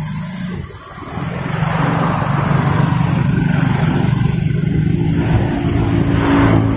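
A motor vehicle engine running, growing louder about a second in, with its pitch shifting as the revs change.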